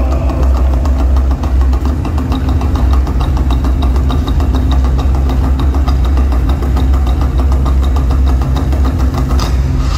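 Live drumming on large barrel drums in a fast, even beat, over a deep, steady low rumble.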